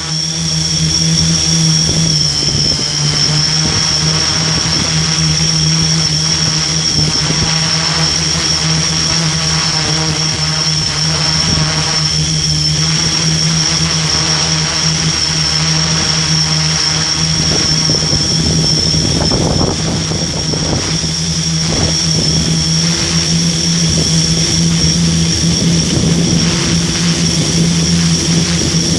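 S500 quadcopter's electric motors and propellers running steadily as the drone lifts off and climbs, heard through a camera mounted on the drone: a constant low buzz with a steady high whine over it.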